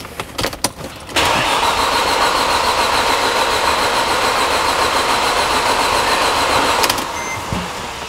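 Starter motor cranking a Mercedes CLK's M271 four-cylinder engine. It begins after a few clicks about a second in, runs evenly for almost six seconds without the engine catching, then stops: the crank-no-start fault.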